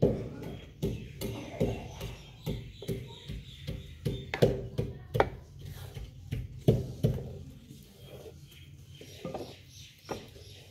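Wooden pestle pounding nuts and cardamom in a clay mortar (kunda): a steady run of dull knocks about three a second that thins out and gets quieter near the end.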